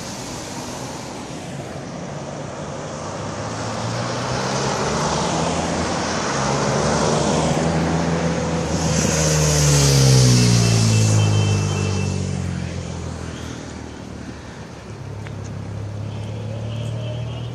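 A police motorcycle approaches and passes close by: its engine grows louder to a peak about ten seconds in, then drops in pitch as it moves away, over steady street traffic noise. Another engine hums near the end.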